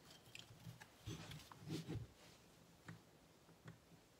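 Faint clicks and light knocks as gloved hands handle and turn the bare cylinder of a 2007 Suzuki RM250 two-stroke on a towel-covered bench, with a short run of louder knocks between one and two seconds in.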